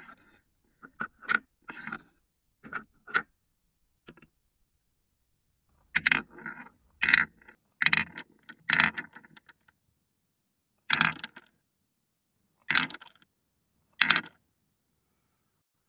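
Small balls dropped from cups and a wooden scoop clatter into a wooden bowl, knocking against the wood and each other. The knocks come in short clusters with pauses between, busiest about six to nine seconds in.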